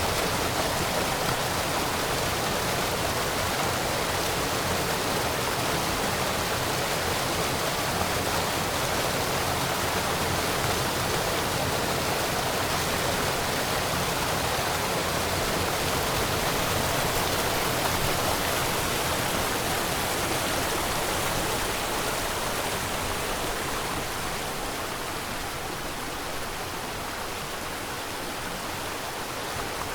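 Small waterfall rushing steadily, an even wash of water noise that eases off slightly after about twenty-two seconds.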